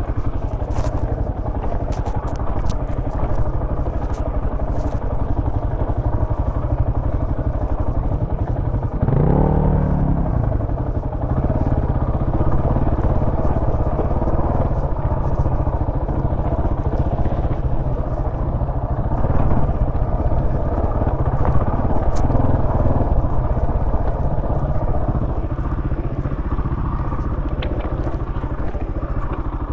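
Dirt bike engine running under load on a rough trail, with one rev that rises and falls about nine seconds in. Sharp clicks and clatter from the bike jolting over rocks come through, mostly near the start.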